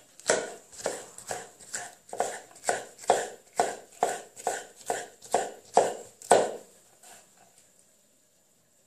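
Kitchen knife slicing green peppers into rings on a wooden cutting board: a steady run of knife knocks against the board, about two and a half a second, stopping a little over six seconds in.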